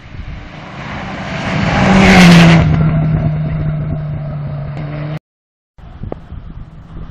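Mitsubishi Lancer Evo IX rally car passing at speed on gravel: the engine grows louder to a peak about two seconds in, drops in pitch as the car goes by, and fades as it pulls away. The sound cuts out for half a second just after five seconds, then an engine is heard again, getting louder.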